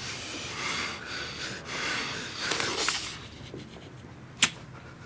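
A young man's heavy breathing, several hard noisy breaths and sniffs through the nose, then a single sharp click about four and a half seconds in.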